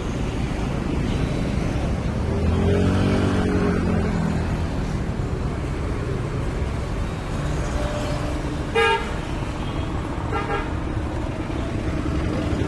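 Road traffic: a steady low rumble, a motor vehicle passing by a few seconds in, and two short horn toots a couple of seconds apart past the middle.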